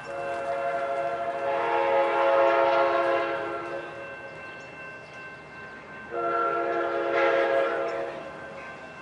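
Locomotive air horn of an approaching Sounder commuter train, sounding a chord of several tones. It gives a long blast of about four seconds, then a second, shorter blast of about two seconds starting around six seconds in.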